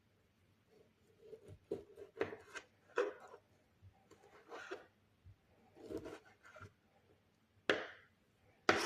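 Knife cutting food on a cutting board: irregular knocks of the blade on the board mixed with short scraping strokes, the sharpest two near the end.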